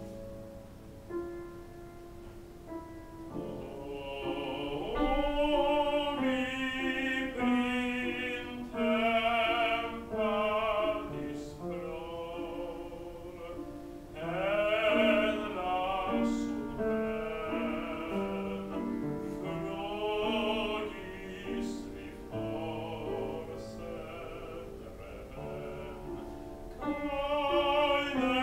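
Classically trained solo voice singing with wide vibrato, accompanied by a grand piano. The piano plays alone for the first few seconds before the voice comes in.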